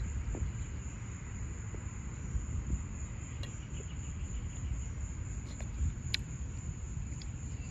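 Crickets trilling in one steady high tone over a constant low rumble, with a few faint clicks.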